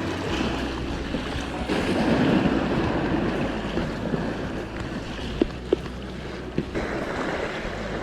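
Wind buffeting the microphone over the wash of sea waves, as a steady rumbling rush, with a few short sharp clicks a little past the middle.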